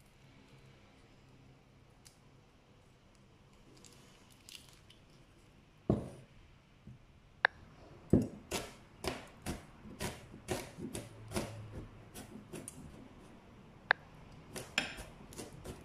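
Chef's knife mincing garlic cloves on a cutting board. After a quiet start there is one knock about six seconds in, then quick, steady chopping strokes of the blade on the board, about two a second, from about eight seconds on, with a couple of sharp metallic clicks.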